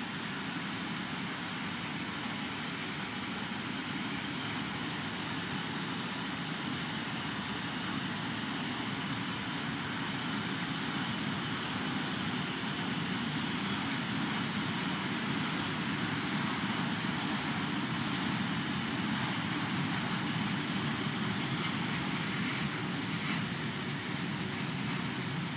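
Freight train of tank wagons rolling slowly past: a steady rumble of wheels on rail that builds a little toward the middle, with a few faint sharp clicks near the end.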